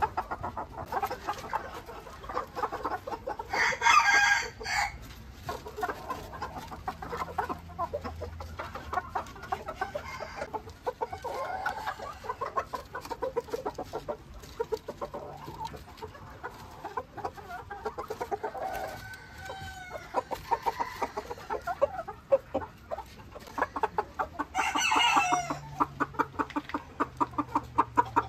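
Ko Shamo bantam chickens clucking throughout, with a short loud rooster crow about four seconds in and another near the end.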